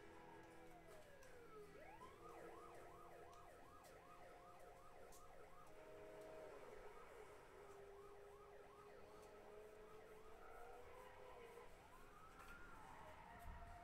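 Faint emergency-vehicle siren: a falling wail, then a fast yelp of about three sweeps a second, then a slower wavering wail that rises again near the end.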